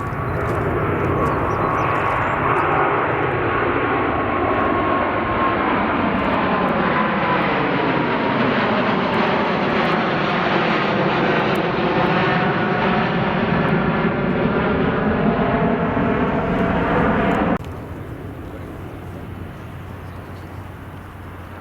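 Jet airliner taking off, its engines at takeoff power in a loud, steady roar. The roar cuts off suddenly near the end, leaving a fainter roar.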